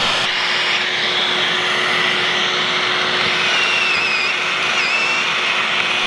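Dust extractor running with a steady rushing hiss while the drill works through the drilling jig's bushing, with a faint wavering whine about halfway through.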